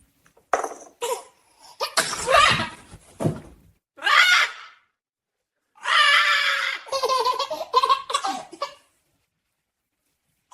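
Laughter in several separate bouts with abrupt silent gaps between them, the longest a few seconds long, ending well before the close.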